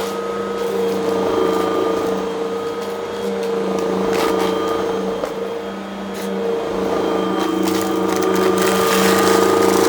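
Vacuum cleaner running steadily, with scattered sharp crackles as crunchy debris is sucked up.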